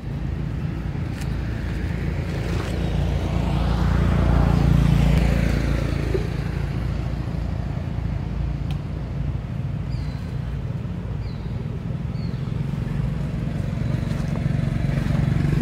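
Motor vehicle engine over a steady low hum, swelling and fading as it passes about four to five seconds in. Three short high chirps come about two-thirds of the way through.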